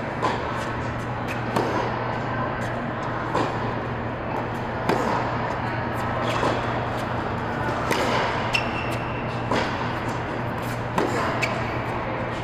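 Tennis rally: the ball struck by rackets about every second and a half, with fainter bounces and hits between, ringing in a large indoor hall over a steady low hum.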